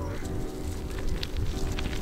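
Background music of held chords that change every half second or so, over a low rumble.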